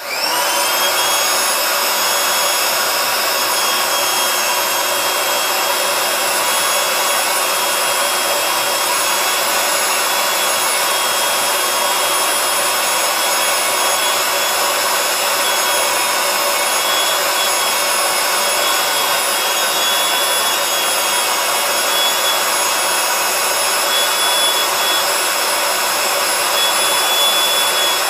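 Handheld electric hair dryer switched on, spinning up with a short rising whine, then running steadily, blowing air into the valve of a vinyl inflatable chair to inflate it.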